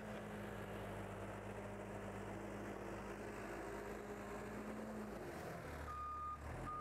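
Backhoe loader's diesel engine running steadily as it moves over the gravel. The engine note changes about five seconds in, and near the end its reversing alarm starts beeping.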